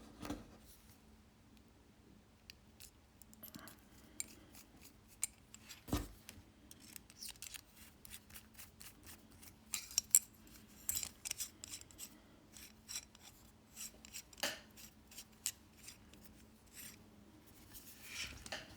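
Irregular small metallic clicks and light scrapes from a brass mechanical pencil with a Schmidt DSM 2006 clutch mechanism being handled and worked, with one louder knock about six seconds in.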